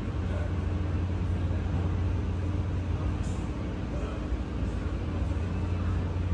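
Steady low hum with a faint higher tone over an even background hiss: indoor room noise.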